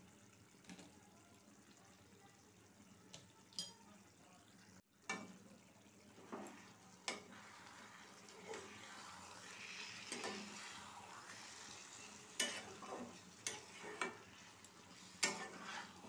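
Chicken curry sizzling in a nonstick pan while a spatula stirs it, with sharp clicks and scrapes of the spatula against the pan. The sizzle is stronger and the clicks come more often in the second half.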